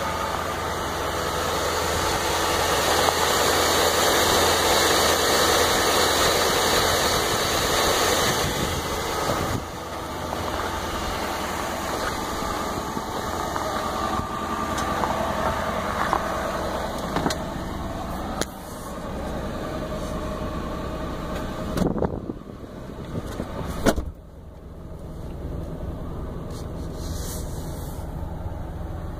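Ford Crown Victoria P71's 4.6-litre modular V8 at a fast cold idle of about 1,200 rpm, shortly after a cold start in freezing weather. A few knocks and a loud clunk about 24 seconds in are a car door shutting, after which the engine is heard muffled from inside the cabin.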